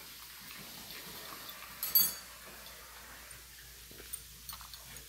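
Faint ticking of a dog's claws on a hardwood floor as it takes a few steps, with one sharp click about two seconds in.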